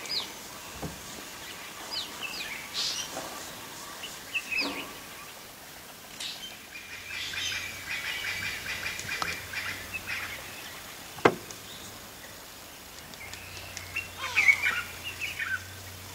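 Wild birds calling: short, falling whistled chirps at intervals and a longer trilling stretch in the middle, with one sharp click about eleven seconds in.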